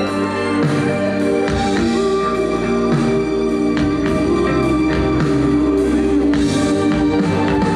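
Live band playing a pop-rock song: a steady drum beat under held chords and acoustic guitar, with the lead singer's voice through the PA.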